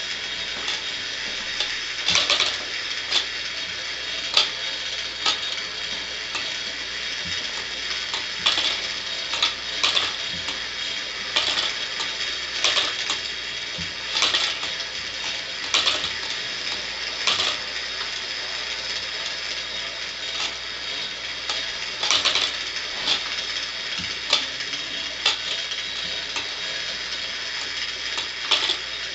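The brass key-wound clockwork of a Schoenhut animated living picture running. A steady whirr from the spinning fan governor and gear train runs throughout, with sharp clicks every second or so as the cams and wire levers move the figures.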